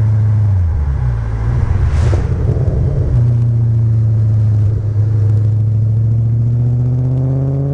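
Audi B7 RS4's 4.2-litre V8 through a Milltek cat-back exhaust: a steady low drone that turns rough and uneven for a couple of seconds about a second in, then settles and climbs slowly in pitch near the end.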